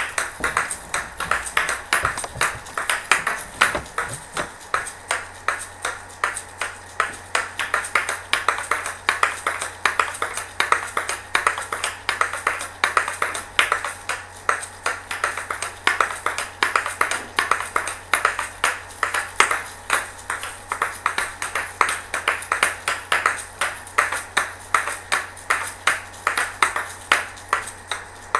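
Asalato (kashaka) shaker balls swung on their cord and clacked together, giving a fast, steady run of sharp clicks in an even rhythm.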